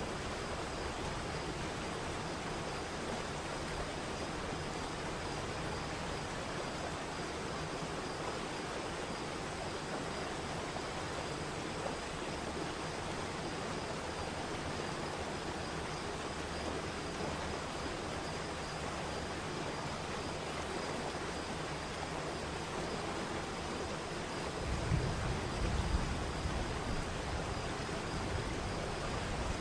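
Waterfall's steady rush of falling water, an even hiss with no rise and fall. About 25 seconds in, a deeper, uneven low rumble joins it and the sound grows slightly louder.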